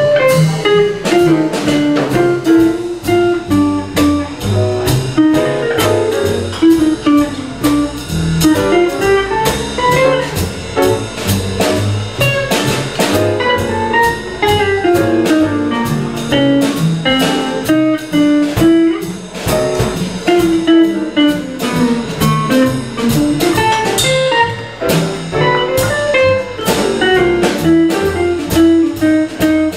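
Small jazz combo playing live: piano, electric guitar, upright bass and drum kit, with a quick single-note melody running over walking bass and cymbals.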